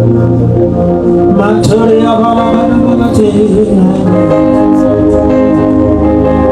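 Soft worship music with sustained keyboard chords and a low bass, with a voice singing along.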